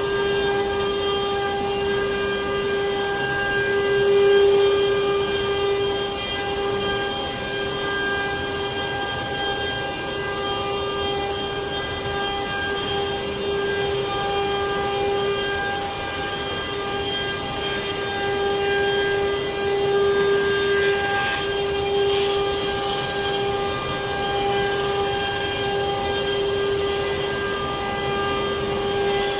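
CNC wood router's spindle running with a steady, even whine that holds one pitch, over a noisy hiss.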